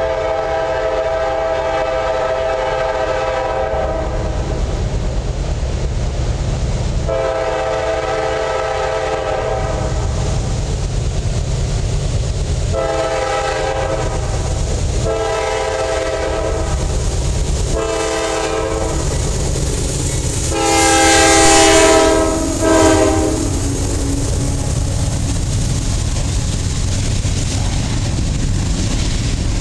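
A CSX GE CW44AC diesel locomotive's multi-chime air horn sounds six blasts for a road crossing as the train approaches: two long, three short, then a final long blast, the loudest, as the locomotive passes. A steady low rumble of the train runs underneath, then the rolling clatter of covered hopper cars going by.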